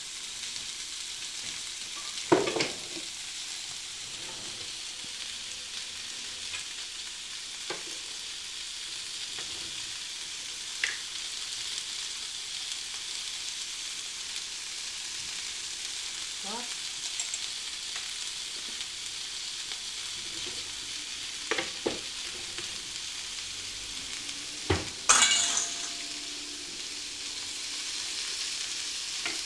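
Sliced onions and red and yellow bell peppers sizzling steadily as they sauté in a frying pan. A few knocks and clinks from stirring and seasoning cut through it, a loud one about two seconds in and a clatter near the end.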